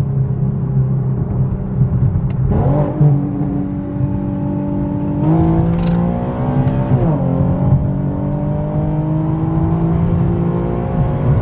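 Infiniti Q50's engine pulling hard under acceleration, its pitch climbing steadily and dropping back at the upshifts, once about seven seconds in and again near the end.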